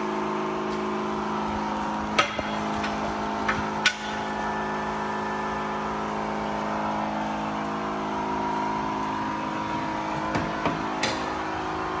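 Pressure washer running with a steady hum while its water jet sprays onto the truck's chassis. A few short sharp knocks come about two to four seconds in and again near the end.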